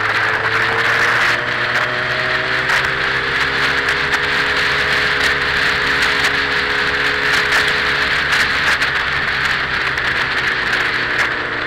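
Motorcycle engine running steadily while riding at road speed, under heavy wind and road noise. The engine note rises a little about a second in, then holds steady.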